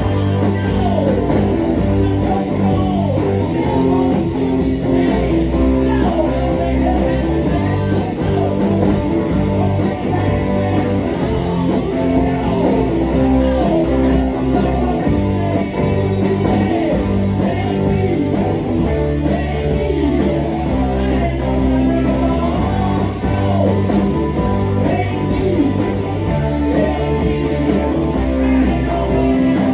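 Live rock band playing together: electric guitars, electric bass and a drum kit, with a steady beat.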